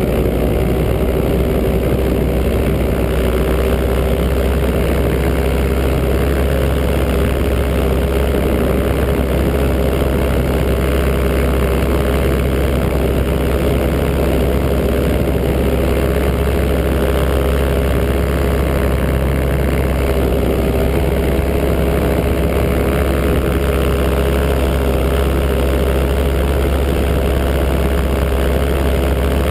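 Paramotor engine and propeller running steadily in flight, a constant loud drone that holds one pitch.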